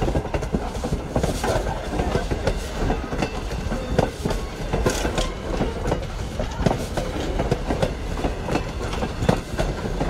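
Passenger coaches of a train rolling past close by: a steady rumble of steel wheels on the rail, broken by irregular clacks and knocks as the trucks pass over rail joints.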